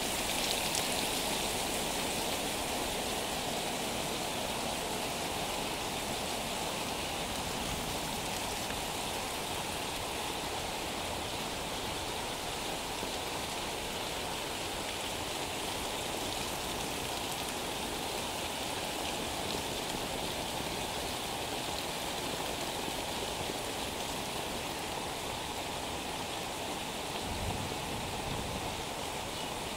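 Heavy rain falling on a paved street and nearby roofs, a steady, even hiss and patter.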